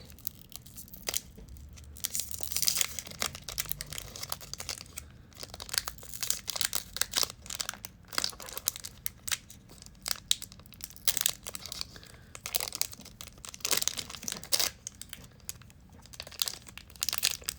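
Shiny wrapper of a trading card pack being torn open and crinkled by hand, in irregular bursts of crackling.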